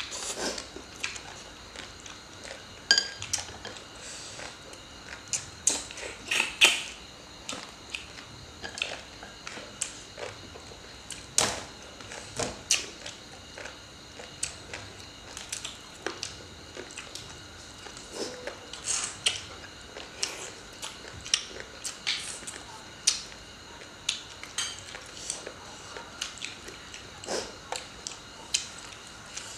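Close-up eating sounds: chewing and crunching of food, with chopsticks and utensils clicking against plates and bowls in short, irregular clicks.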